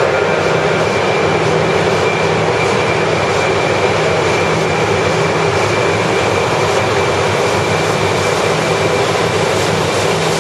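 JR East 200 series Shinkansen train moving slowly along an underground station platform: a steady, loud running noise of wheels and traction gear, with a low hum that comes and goes and a faint high whine.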